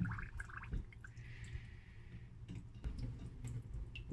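Faint water sloshing and dripping as a skinned field rat is rinsed by hand in a bowl of water in a stainless-steel sink, with small splashes and a short trickle about a second in.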